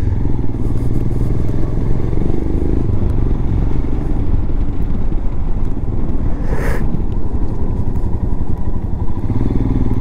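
Motorcycle engine running steadily while riding at a constant speed. About seven seconds in there is a brief rush of noise.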